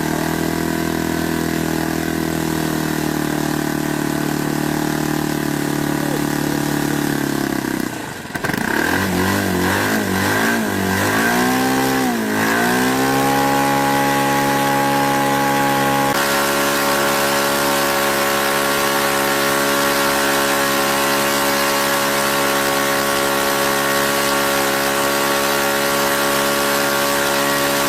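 An engine running at a steady speed. About eight seconds in its pitch wavers up and down for several seconds, then it settles and runs steadily at a higher speed.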